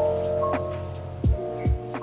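Instrumental background music with held notes and two soft low drum beats in the second half.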